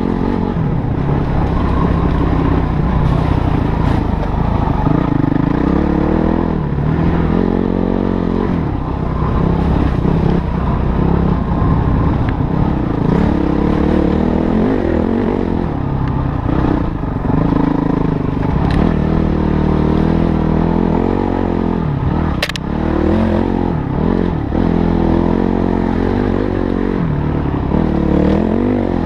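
Motorcycle engine running under way, its pitch rising and falling repeatedly as the throttle is opened and closed, with a sharp knock about three-quarters of the way through.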